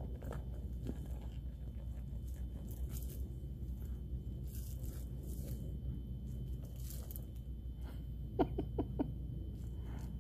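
Terrier puppy chewing and mouthing a plush toy: soft gnawing and rustling on the fur fabric, with a quick run of three or four short pitched sounds about eight seconds in.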